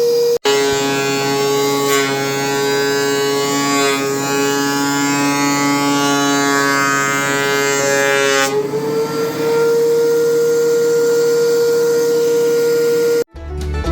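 Benchtop thickness planer planing a board. The motor's steady high whine drops slightly in pitch and turns rough and gritty while the board feeds through the cutterhead for about eight seconds, then rises back to its free-running pitch. Music cuts in just before the end.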